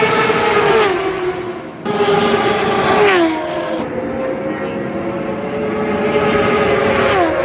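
Superbike racing motorcycles at high revs going past one after another, each engine note holding high and then dropping in pitch as the bike passes. The sound jumps abruptly twice between passes.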